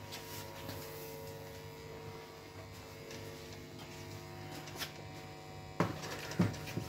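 A steady electrical-sounding hum, with three short knocks close together near the end.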